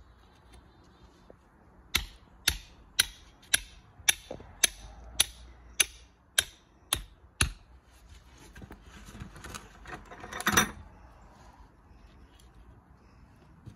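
Mallet driving steel nails through plastic snap edge paver restraint: about eleven sharp, even strikes, roughly two a second, followed by a brief scrape a few seconds later.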